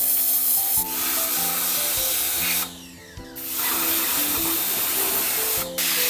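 Hiss of a high-pressure steam and water spray gun blasting washing-machine parts. The spray cuts out briefly about halfway through and again for a moment near the end, with background music playing.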